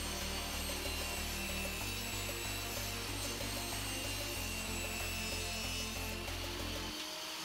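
Table saw running and cutting through a white PVC sheet pushed across it by hand, with a steady high whine and hiss throughout, over background music with a low bass line.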